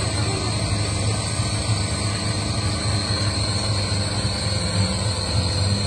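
Modified off-road 4x4's engine running steadily under load as the truck works through a deep mud pit, with a steady high whine over it.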